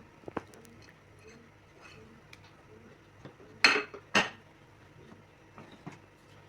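Kitchen utensil knocking against a cooking pot: a couple of light clinks, then two louder clanks about half a second apart, followed by a few faint taps.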